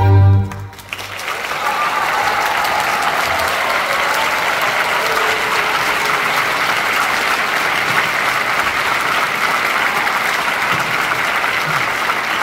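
The trio's final chord on violin, guitar and bass cuts off within the first second, and a concert audience starts applauding about a second in, clapping steadily and evenly from then on.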